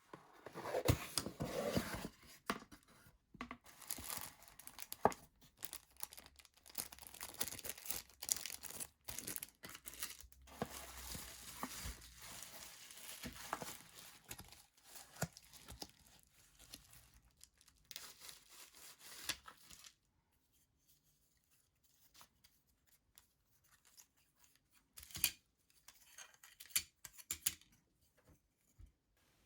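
Irregular handling noise: crackling, rustling and tearing with many sharp clicks for about twenty seconds, then quiet with a few isolated clicks near the end.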